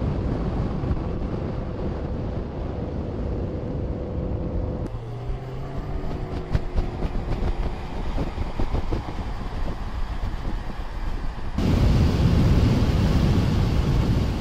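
Exhaust of a 2020 Ford Mustang Shelby GT500's supercharged 5.2-litre V8 at track speed, mixed with wind noise, in several edited cuts. About five seconds in, the engine note falls with a string of sharp crackles and pops. Near the end it comes back much louder and fuller.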